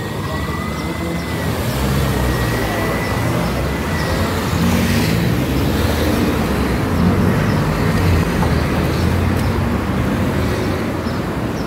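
Road traffic: cars and a van pulling away and driving past over the crossing, engines accelerating with tyre noise.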